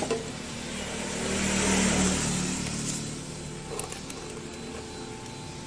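A motor vehicle passing by, its engine and road noise swelling to a peak about two seconds in and then fading.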